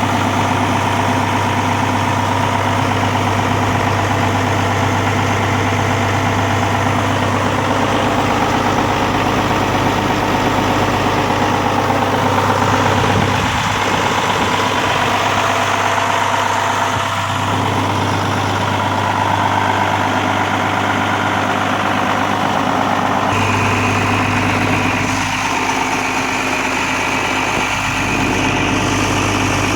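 A 1998 John Deere 7405 farm tractor's diesel engine running steadily at idle. About three-quarters of the way through the sound shifts, and a steady higher whine joins the engine note.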